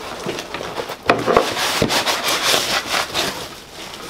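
Cardboard packaging being handled: a white insert sliding and scraping out of a cardboard box, with a few light knocks about a second in.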